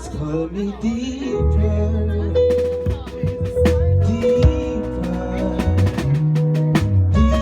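Rock band playing a song: drum kit with repeated cymbal hits over held bass notes and guitar or keyboard chords.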